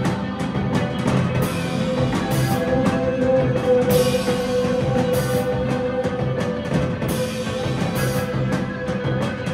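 Live rock band playing: electric guitars and bass over a drum kit, with one long held guitar note ringing through and a cymbal crash about every second.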